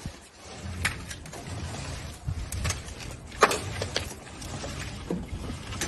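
A building shaking in an earthquake: a steady low rumble with a series of sharp cracks and knocks, the loudest about three and a half seconds in. The knocks come as the concrete rooftop parapet cracks and debris breaks off.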